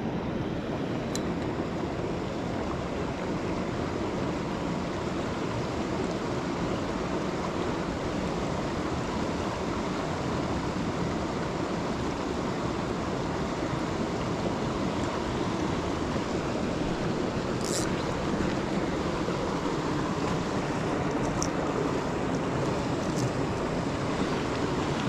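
River water rushing steadily over rocks, a constant noise with a few faint high ticks in the second half.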